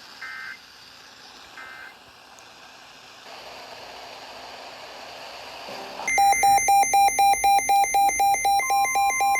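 Emergency alert tones. Near the start there are two short electronic data chirps. About six seconds in, a loud alert begins for a severe thunderstorm warning on NOAA Weather Radio: rapid beeping at about four beeps a second, joined near the end by the steady weather radio warning tone.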